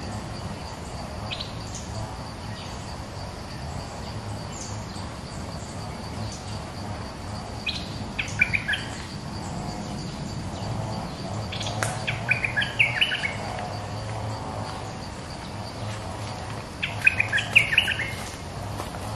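A bulbul singing three short bursts of quick bubbling notes, spaced a few seconds apart, over a steady high insect whine.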